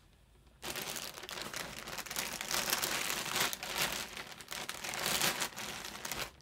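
Clear plastic bag crinkling as a hand rummages among balls of yarn inside it. It starts about half a second in and stops suddenly near the end.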